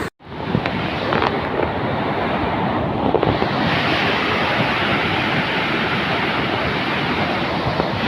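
Fast-flowing floodwater rushing steadily. The sound drops out for a split second right at the start.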